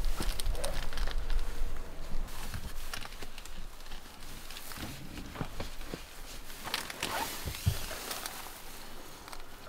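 Rustling, crinkling and light clicks of padded, foil-backed window shades being handled and pressed into a van's window frames, with a few knocks and one low thump about three-quarters of the way through.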